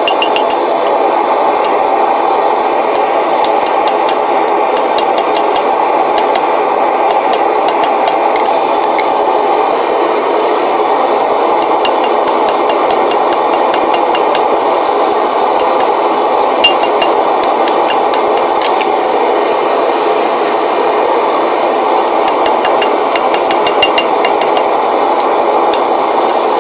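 Steady rushing roar of a blacksmith's forge, with light metallic taps and clinks of steel tools on the mild-steel stock in scattered clusters.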